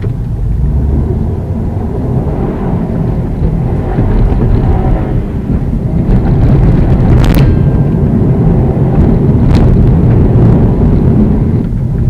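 Inside the cabin of a 2015 Subaru WRX STI driven hard over a rough dirt track: a heavy low rumble of tyres, loose surface and suspension with the turbocharged flat-four engine under it, growing louder about four seconds in. Two sharp knocks come a couple of seconds apart in the second half.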